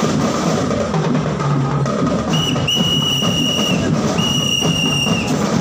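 Parade marching band drumming a steady beat, with two long whistle blasts, the first about two seconds in and the second about four seconds in.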